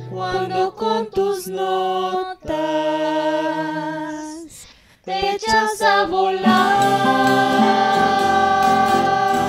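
Mixed vocal ensemble singing a Colombian pasillo in harmony with vibrato, accompanied by classical guitars. The voices break off briefly a little before halfway, then come back and settle on a long held chord.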